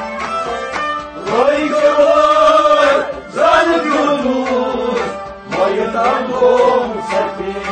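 Male singer performing a Kashmiri Sufi devotional kalam over instrumental accompaniment: after about a second of the instruments alone, he sings three long, bending phrases.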